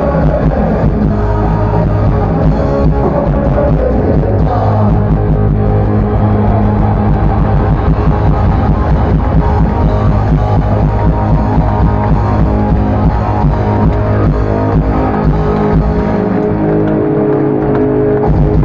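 Live rock band playing loudly with electric guitars, heard from within the crowd through a phone's microphone.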